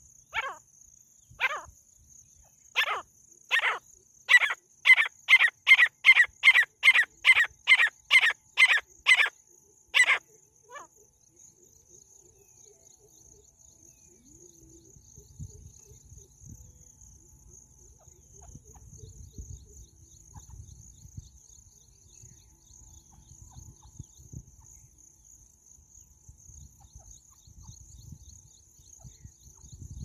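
Caged female francolin calling: a series of harsh calls, a few spaced ones at first, then quickening to about two a second before stopping about ten seconds in. A faint steady high insect trill runs underneath.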